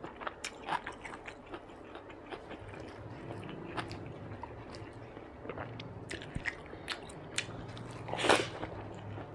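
A person eating soft food: chewing with many quick wet mouth clicks, and a louder bite about eight seconds in as a mouthful of fried egg goes in.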